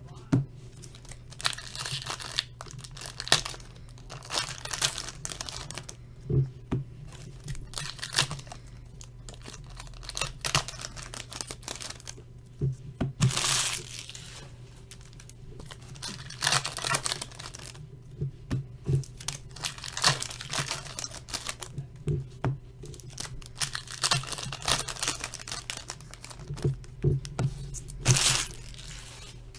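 Wrappers of Upper Deck Champs hockey card packs crinkling and tearing as packs are ripped open and the cards handled, in irregular short rustling bursts.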